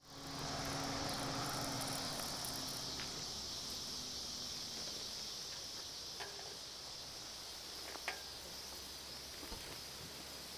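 Steady high chirring of summer insects. It fades in at the start, with a low hum dying away over the first few seconds and a few faint clicks, the sharpest about eight seconds in.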